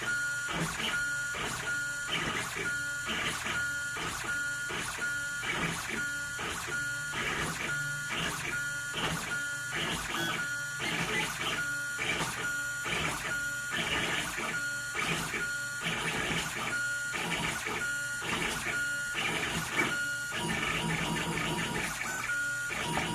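Stepper motors of a DIY pen-plotter CNC running through short, repeated moves, about two a second, over a steady high whine. Near the end the moves run closer together.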